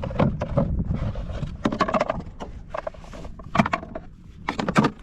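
Irregular knocks and thumps as a redfish is handled and laid out on a measuring board in a kayak. The loudest knocks come a little past halfway and again near the end.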